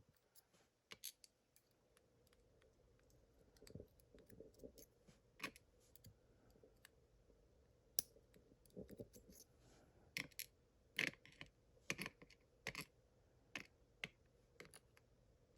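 Faint, irregular small clicks and taps of metal lock pins, spool pins among them, being tipped out of a padlock's plug and handled one at a time.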